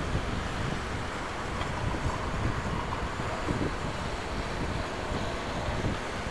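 Steady outdoor noise: wind buffeting the microphone over a low rumble of road traffic.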